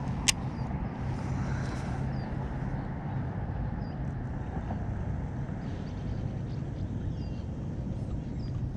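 Steady low rumble with a constant low hum, and one sharp click about a third of a second in.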